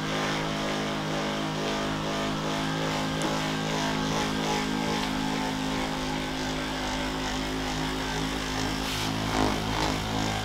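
Handheld percussion massage gun running steadily, its motor humming as the head is pressed against the side of a person's leg. The hum shifts slightly about nine seconds in.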